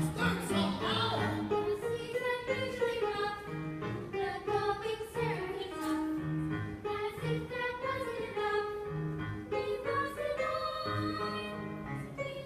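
Group of young voices singing a show tune together over instrumental accompaniment, several vocal lines at once.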